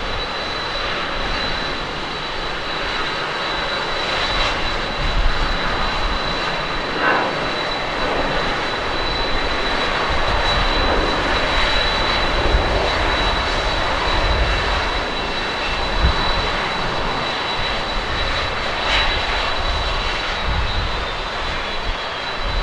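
Airbus A320 jet engines at takeoff thrust: a steady, loud roar with a thin high whine running through it, as the airliner rolls down the runway, lifts off and climbs away.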